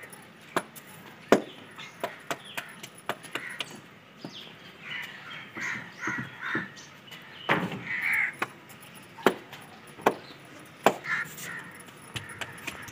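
Roti dough being patted flat between the palms by hand: a string of sharp slaps at an uneven pace. Short animal calls sound in the background about halfway through.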